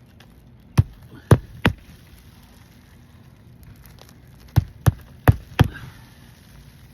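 Hammer striking roofing nails into asphalt shingles: three sharp blows about a second in, then four more near the end.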